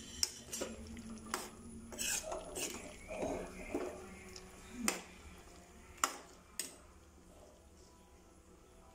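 A spoon stirring a thick vegetable-and-pea curry in a pan: scattered scrapes and clicks of the spoon against the pan, thinning out after about five seconds, with two sharp clicks around six seconds in.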